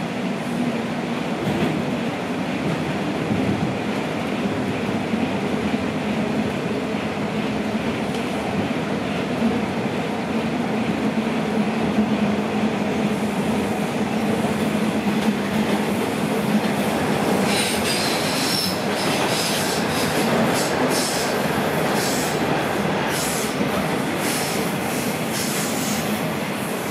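Toronto Rocket subway train running between stations, heard from inside the car: a steady rumble of wheels on rail with a low hum. From about two-thirds of the way through, the wheels give repeated short, high-pitched squeals.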